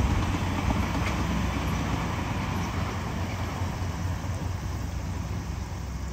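Tobu N100 series Spacia X electric train running past on the line, its wheels rumbling on the rails with a few faint clicks. The sound slowly dies away as the train draws off into the distance.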